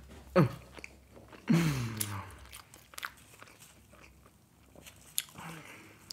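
A man's short wordless hum, then a longer falling, breathy vocal sound, followed by faint crackles and clicks as gloved hands tear open a soft biscuit.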